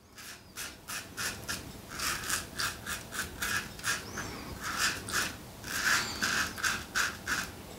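Double-edge safety razor (Alpha Outlaw Evolution, stainless steel) scraping stubble through lather on the neck and chin: a run of short strokes, about two or three a second, growing louder after the first couple of seconds.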